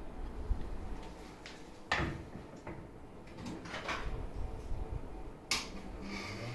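A few scattered clicks and knocks of handling work, the sharpest about two seconds in and again near the end, over a low background rumble.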